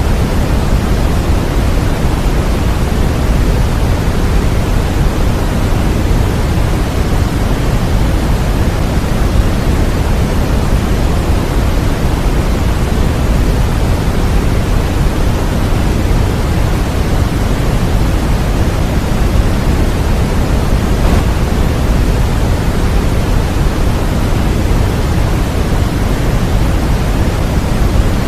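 Continuous sleep-aid white noise: a steady, unbroken hiss with more weight in the low end than the highs, so it leans toward pink noise.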